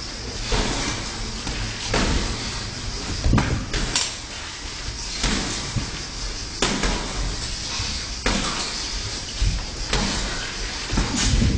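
Boxing-glove punches thudding on a sparring partner's gloves and headgear, in irregular sharp strikes about one a second.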